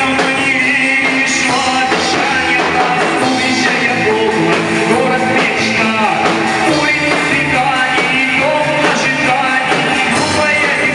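Rock-style band music at a steady, even loudness, with melody lines gliding and moving over a full backing.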